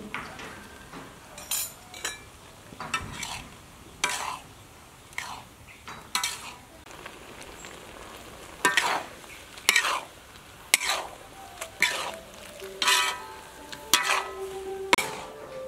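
Metal spatula scraping and stirring water lily stems and ground pork around a wok, about one stroke a second, some strokes ringing briefly off the metal, over a low frying sizzle.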